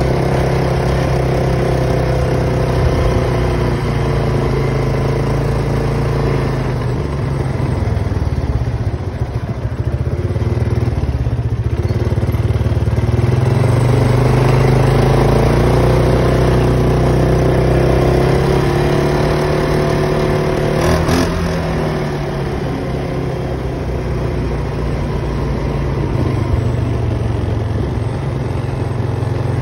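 Polaris Sportsman 570 ATV's single-cylinder engine running under way, its pitch dropping and climbing again several times as the rider eases off and accelerates. A short knock sounds about two-thirds of the way through.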